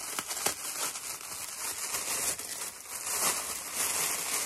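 Gift wrapping crinkling and rustling as an advent package is unwrapped by hand.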